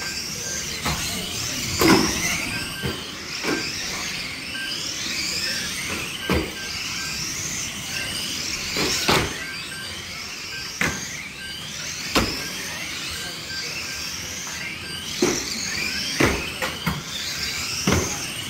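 Several radio-controlled saloon stock cars racing on a carpet track, their electric motors whining up and down in pitch as they speed up and slow for the bends. Frequent sharp knocks cut through, the loudest about two seconds in and near the end.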